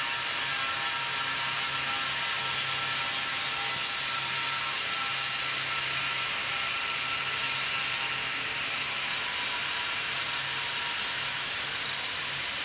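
Flux-cored arc welding (FCAW) arc running steadily through a horizontal (2G) capping pass on steel plate, a continuous hiss under a low steady hum.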